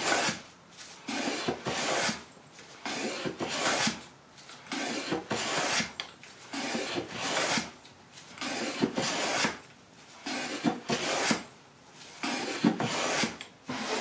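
Wooden jack plane with a bird's-eye maple body and a 2-inch Pinnacle blade shaving a board: about eight long hissing cutting strokes with short pauses between them, each stroke peeling off a curled shaving.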